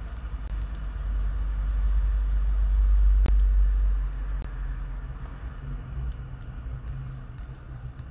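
A deep low rumble that swells to its loudest about three seconds in and then eases off, with a low steady hum underneath in the second half and a few faint clicks.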